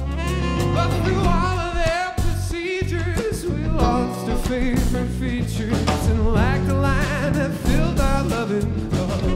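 A funk jam band playing live: a man sings lead with vibrato over electric guitar, a steady bass line and drums.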